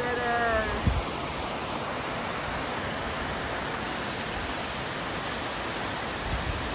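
Waterfall rushing with a steady, even roar of falling water. A brief pitched call, falling slightly, sounds right at the start.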